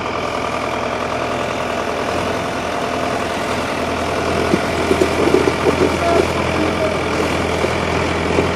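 Diesel tractor engines running steadily and hard, under load on a tow chain during a pulling contest.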